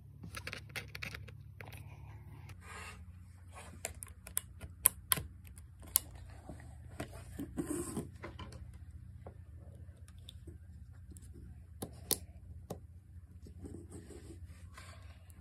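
Scattered small clicks, taps and rustles of wire connectors and alligator clips being handled and clipped onto a switch, bulb holders and a battery holder, over a low steady hum. The sharpest clicks come about five seconds in and again near twelve seconds.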